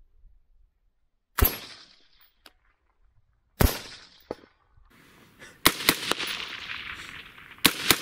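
Suppressed .223 AR-15 carbine with an 11.5-inch barrel firing four single shots about two seconds apart.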